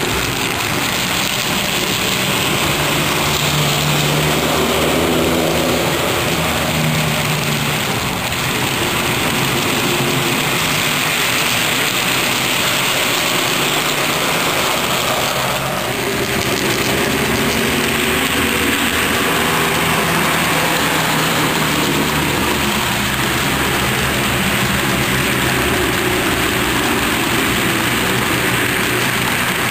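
HO scale model freight train running past on its track, the cars rolling steadily, with a steady low diesel-engine drone from the lead SD40-2 locomotive model.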